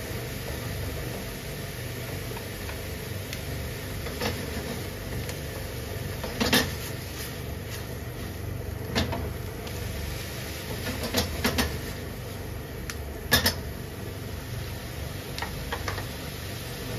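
Kitchen clatter: irregular short knocks and clinks of cookware and utensils being handled, the loudest about two thirds of the way through, over a steady low hum.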